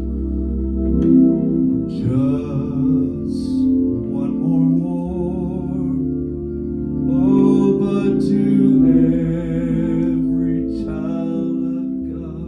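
Hammond organ playing a slow gospel hymn in long sustained chords over a deep held bass.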